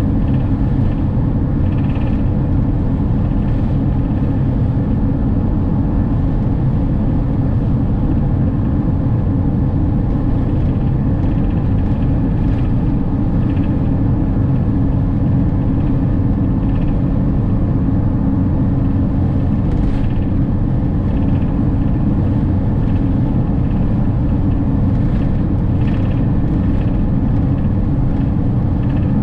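Steady low road rumble of a camper van cruising at highway speed, engine and tyre noise heard from inside the cab.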